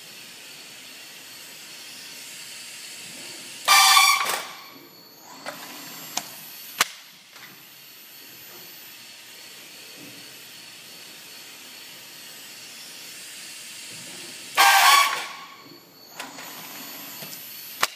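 Short loud pneumatic air hisses from a CNC roll bender's automatic part loader, twice about 11 seconds apart, once per load cycle. A few sharp clicks fall between them over steady machine noise.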